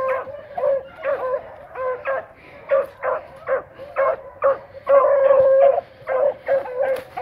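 Beagles baying while running a scent trail: a string of short, high yelps about one or two a second, with one longer drawn-out bay about five seconds in.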